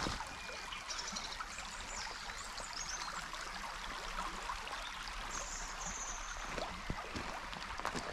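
Shallow beck flowing over a stony, pebbly bed: a steady rush of running water.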